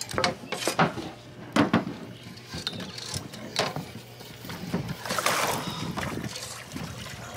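A hooked striped bass thrashing and splashing at the surface beside a boat, with irregular sharp knocks and a longer burst of splashing about five seconds in.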